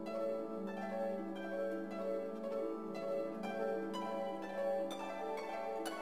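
Background music: a melody of plucked-string notes following one another several times a second.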